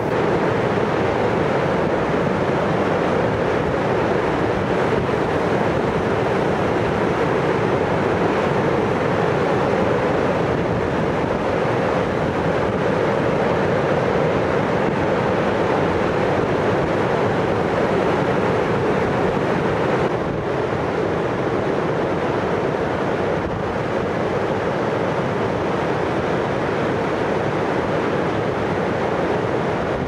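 Mountain river in high water rushing over rapids: a steady, loud rush of white water, dropping slightly about twenty seconds in.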